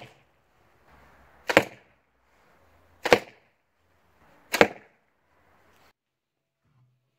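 Arrows striking a homemade archery target one after another, a sharp thud about every second and a half, each led in by a faint rising hiss.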